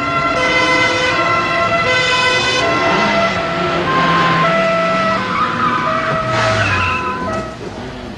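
Alfa Romeo Carabinieri escort cars running at speed with two-tone sirens switching between pitches and engines revving. The siren tones sit lower in the second half.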